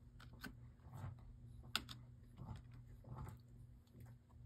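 Faint clicks and soft rustles of stiff polaroid-style photo cards being flipped through by hand, one card after another under a second apart, the sharpest click just under two seconds in.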